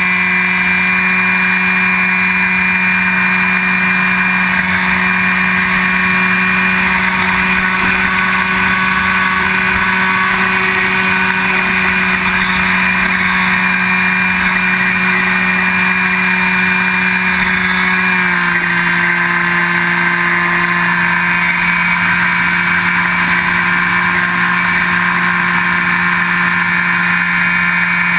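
Brushless electric motor and propeller of a Skywalker 1680 FPV plane running steadily in flight, heard through its onboard GoPro as a loud, even drone. The pitch drops a step about eighteen seconds in.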